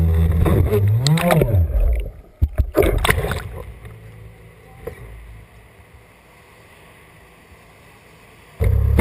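A loud droning sound, rising then falling in pitch about a second in, cuts off about two seconds in. Water splashes against the board as a body boarder collides with it, then quieter water sloshes and laps for several seconds. The loud droning sound comes back abruptly near the end.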